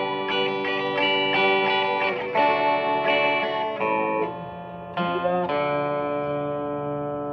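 Electric guitar playing a lead line through a Donner Verb Square Evolution Plus mini reverb pedal on its 'dark C' setting, which adds an octave to the reverb. Notes ring into the reverb, and about five seconds in a new note is struck and held, ringing out.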